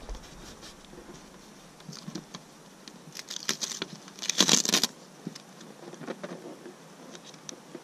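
Close rubbing and crackling noise from the camera shifting against the target board, scattered clicks building to a dense burst of crackle about four and a half seconds in.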